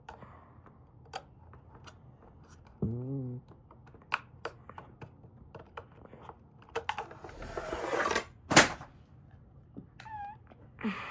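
Clicks and knocks of a cracked plastic power-strip shell and its broken pieces being handled, with a scraping rasp that swells and ends in one loud sharp knock about eight and a half seconds in.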